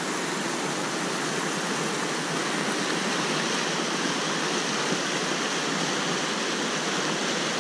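Muddy flash-flood water rushing fast and turbulent across a road and through a rocky wash, a steady, unbroken rush of water.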